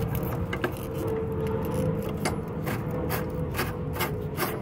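Steel threaded rod being twisted by hand into a strut-channel nut, metal rubbing and scraping with irregular small clicks several times a second, over a steady low rumble.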